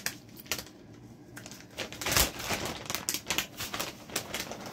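Plastic bag of shredded cheese being handled and opened: irregular clicks and crinkles, with one louder crackle about two seconds in.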